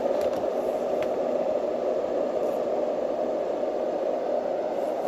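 Motor-driven fan white noise machine running steadily on its slow speed, giving an even, mid-pitched whooshing hiss.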